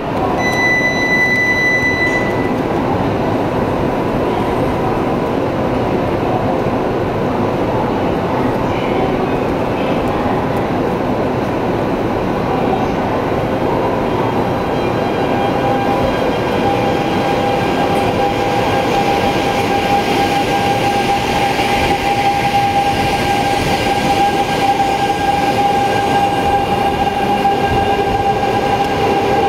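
E2 series Shinkansen train pulling out past the platform, its running noise loud and steady. From about halfway a steady electric whine from the drive motors comes up and grows stronger. A brief high electronic tone sounds in the first two seconds.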